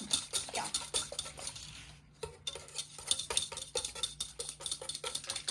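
A kitchen utensil clicks and scrapes against a dish in quick, irregular strokes, as in stirring, with a short pause about two seconds in.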